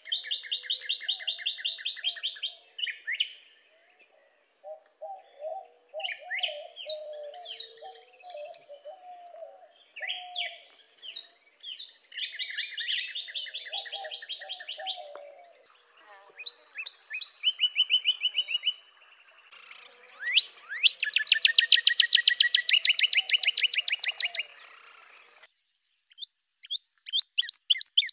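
Northern cardinal singing: bouts of rapid, repeated slurred whistles separated by short pauses, with the loudest bout about twenty seconds in. Softer, lower warbling calls run under the song from about five to ten seconds in, and a steady high whine sits behind the loudest bout.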